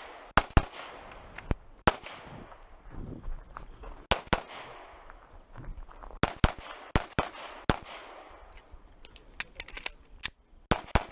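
Pistol shots fired in quick pairs and short strings, with pauses of a second or two between groups while the shooter moves or changes targets. A rapid run of shots comes near the end.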